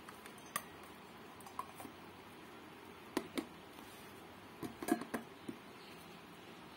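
Light clicks and knocks of plastic lunch box containers and lids being handled and lids pressed shut. There is a pair of clicks about three seconds in and a cluster of knocks near five seconds.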